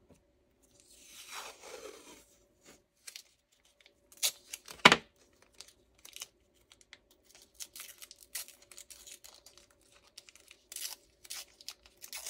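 Washi tape being pulled off its roll and torn, then two sharp knocks on the desk about four and five seconds in, the second the loudest, followed by light paper rustling and small clicks.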